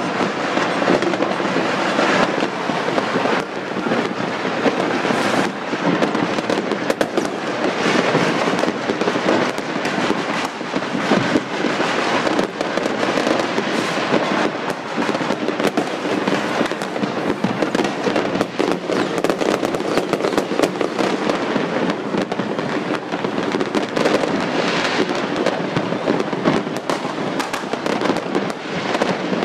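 Fireworks and firecrackers going off non-stop: a dense, continuous crackle of many overlapping bangs and pops with no pause.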